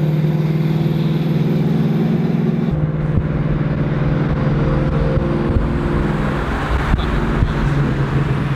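A tuned car's engine running steadily while driving, with road noise; its note shifts about three seconds in.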